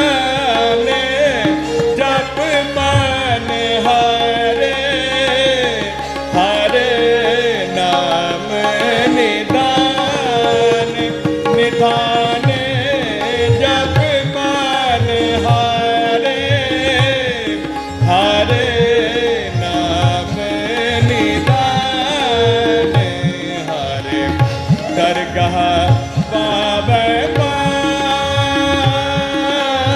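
Shabad kirtan music: a harmonium plays the melody over a steady tabla rhythm.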